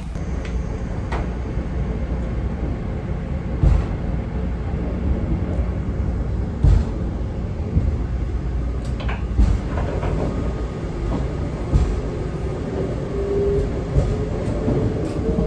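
Inside a JR 381-series limited express car: a steady rumble of the train running, with wheel knocks over rail joints coming at shortening intervals as it gathers speed.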